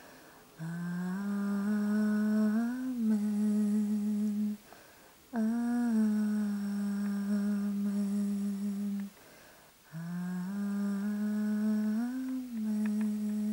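A single voice humming the song's closing melody in three long phrases, each held mostly on one low note with a brief rise and fall near its end.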